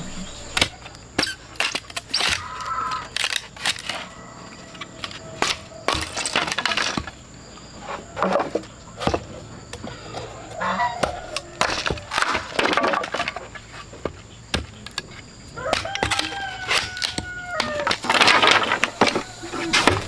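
Bamboo being split with a machete: repeated sharp cracks and knocks as the blade is driven into the tube and the culm splits apart. A rooster crows several times, most plainly near the end.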